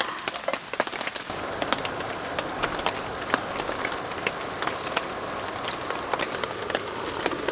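Steady rain pattering on a camping tarp, with many small drop taps scattered through it.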